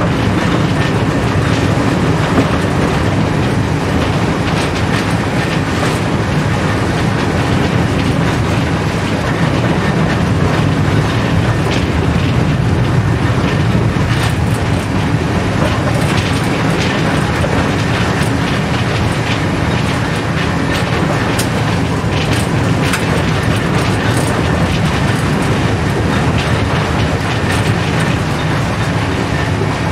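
Tram running along street track, heard from inside the driver's cab: a steady rumble of wheels and running gear, with scattered clicks of the wheels over the track.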